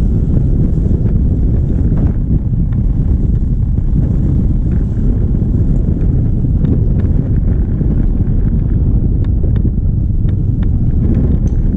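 Wind buffeting the microphone on a moving motorcycle: a loud, steady low rumble, with a few faint clicks.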